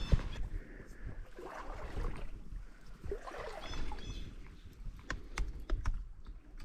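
Water sloshing and gurgling as someone wades in a small river, with scattered sharp knocks and clicks.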